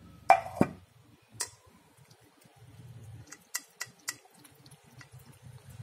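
A ceramic bowl knocking twice against the floor as it is set down, then a cat eating enoki mushrooms from it, with a few short light clicks of teeth and collar bell against the bowl.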